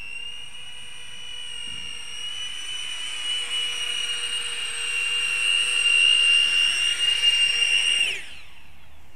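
Electric ducted fans of a thrust-vectoring drone whining steadily at a high pitch, growing louder as it comes in close. About eight seconds in the fans cut off and spin down with a quickly falling whine, the drone having landed.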